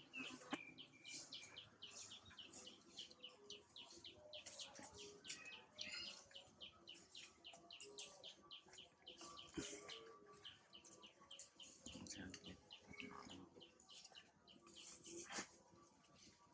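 Faint, high bird chirps repeating quickly and evenly, about four a second.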